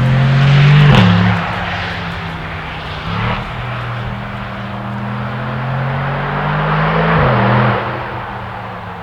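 Aston Martin DBX707's twin-turbo V8 pulling under acceleration, its pitch climbing steadily and dropping sharply at an upshift about a second in, then climbing again through a long pull to a second upshift late on.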